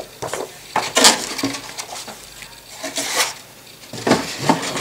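Handling noise as a plastic model kit is unpacked: a cardboard box, a plastic bag of sprues and a paper instruction booklet rustle and knock in several short bursts.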